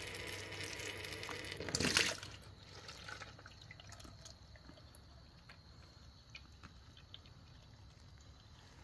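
Automatic transmission fluid draining from the transmission pan's drain hole, falling in a thin stream into a plastic bucket, faint and steady. Louder handling noise as the drain plug is worked free comes first, peaking about two seconds in.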